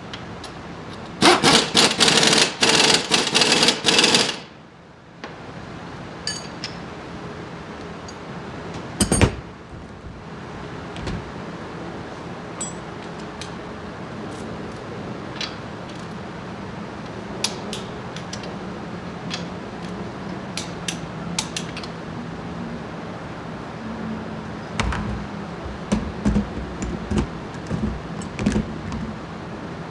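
Impact wrench rattling hard for about three seconds, working a nut or bolt during a front shock absorber job. Then comes a single sharp knock, followed by scattered light clicks and clinks of tools on metal.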